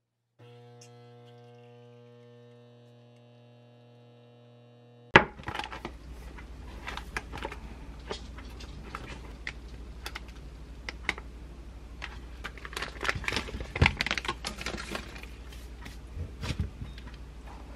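Hands opening a paper cake box and its plastic wrapper and setting a pumpkin crumble pound cake on a wooden plate: irregular rustling, crinkling and light taps. Before that, a quiet steady electric hum from a kitchen appliance cuts off at a sharp knock about five seconds in.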